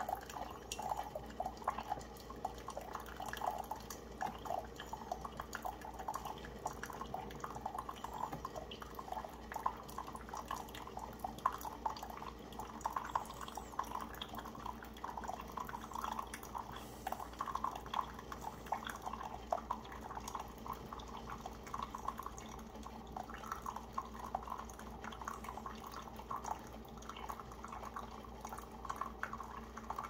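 Water from a Keurig K25 single-serve coffee maker pouring in a thin stream into a ceramic mug, a steady trickling splash, as the machine runs water through during its descaling cycle. A faint steady hum sits underneath.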